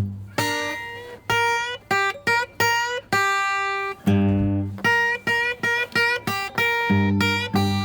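Banjo played solo in a slow blues: a run of single plucked notes and short phrases, with a few notes sliding in pitch.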